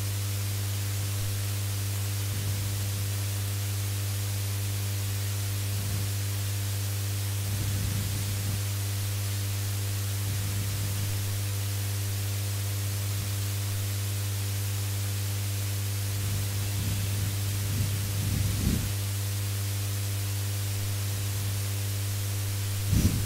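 Steady electrical mains hum with hiss from the microphone chain, with a few faint, brief low sounds now and then.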